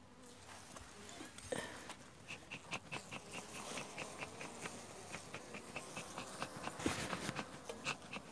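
Honeybees humming faintly at an open hive, with a soft knock about one and a half seconds in. From about two seconds in, a rapid, even series of short high chirps, about three to four a second, runs alongside.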